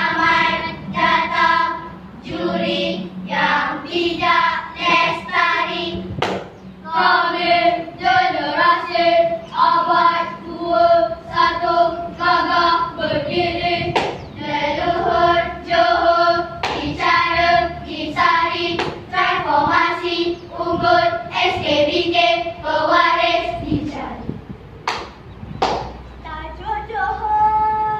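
A children's choral-speaking group chanting and singing rhythmic lines in unison, with a few sharp claps between phrases.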